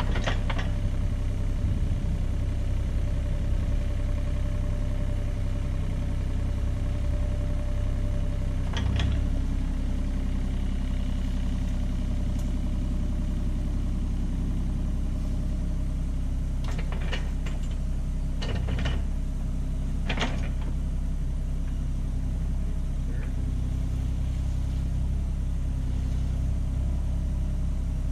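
John Deere 35G mini excavator's diesel engine running steadily, with a few sharp knocks from the machine at work: one about nine seconds in and a cluster a few seconds later.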